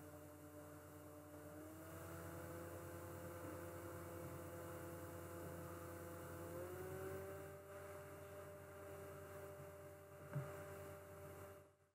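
Faint whirring whine of a computer's cooling fan under load while a CFD solver runs, over a steady low hum; its pitch steps up twice, about two seconds in and again around seven seconds. A single click comes near the end, and the sound cuts off suddenly just before the end.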